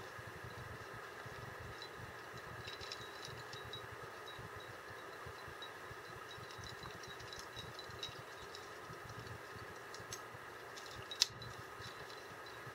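Faint clinks and ticks of climbing hardware (carabiners and quickdraws) and rope being handled, over a steady low hiss. One sharper click comes near the end.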